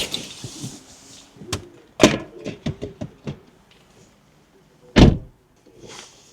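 A car door: a latch click and a clunk followed by rattling clicks, then the door is shut with a heavy thud about five seconds in.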